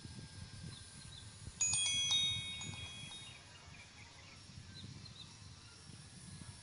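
A brief cluster of high, bell-like ringing tones about a second and a half in, fading within a second, over a low irregular rumble.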